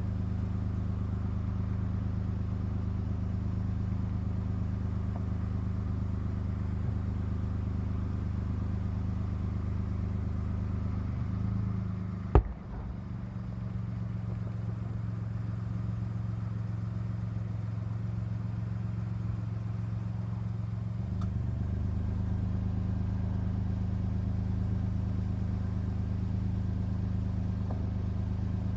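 A steady low motor hum, like an engine running at a constant speed, with one sharp knock about twelve seconds in.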